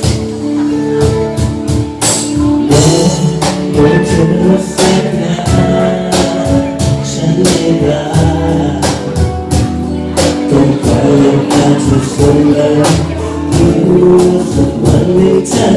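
A small live band playing a song: guitar, keyboard and held horn notes over a steady beat of light percussion hits, with a man singing into a microphone in places.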